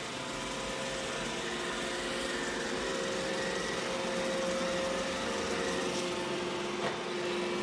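Roomba robot vacuum running, a steady whirring hum with a few held tones that grows slightly louder.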